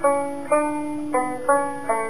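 Banjo music: a slow melody of single plucked notes, about five of them, each ringing and fading before the next.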